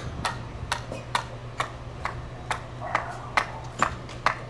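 A steady run of sharp ticks or taps, about two a second, over a low steady hum.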